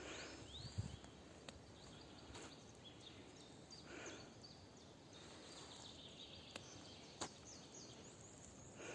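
Faint woodland birdsong: a bird repeating a run of short, high, down-curving notes, heard near the start and again near the end, over quiet forest background with a few soft rustles.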